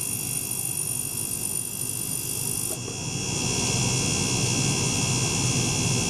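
Steady low hum and hiss of a small ultrasonic cleaning bath with a small pump circulating liquid through it. About three seconds in the sound shifts, the hiss changing and the hum growing a little louder, as the ultrasonic and circulation drive changes state.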